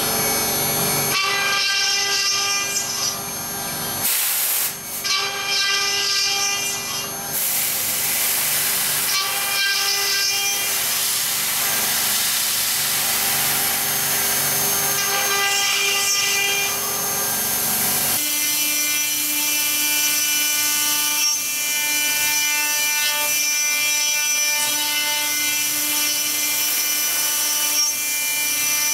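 CNC 6040 router spindle milling an aluminium strip with a small end mill: a steady high spindle whine over the rough scraping noise of the cut. The sound changes abruptly a few times, and after about 18 s the whine is steadier with less cutting noise.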